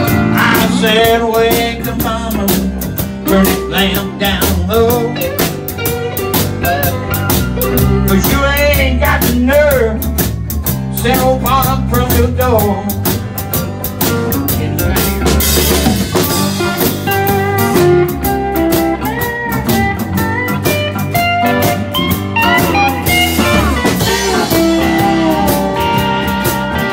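Live blues-flavoured country band playing: strummed acoustic guitar, electric bass and a drum kit keeping a steady beat with cymbals, under a guitar lead with bending notes.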